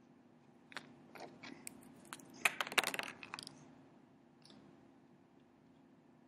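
Small clicks, taps and scrapes of felt-tip markers being handled and swapped, with the folded paper coffee filter rustling, bunched together from about a second in and loudest around two and a half seconds in, then one last small click.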